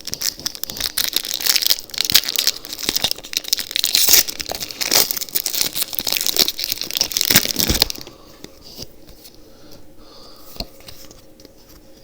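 A Pokémon TCG booster pack's foil wrapper being crinkled and torn open, a dense crackling and ripping that stops about eight seconds in.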